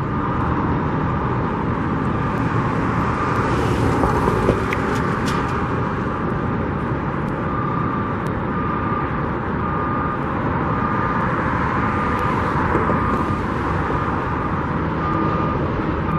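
Steady outdoor din of vehicles and construction-site machinery. From about halfway through, a high beep repeats evenly, about two a second.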